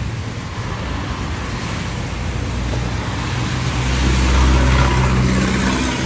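Road traffic: a motor vehicle's engine hum over a steady wash of road noise, growing louder about halfway through as it passes close.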